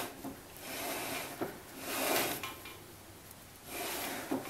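Wheel hub of a 1967 Sears Suburban garden tractor slid back and forth on its axle shaft: metal rubbing and scraping in three swells of about a second each, with a short click about a second and a half in. The sliding shows that the hub has no locking ring and is not locked to the axle.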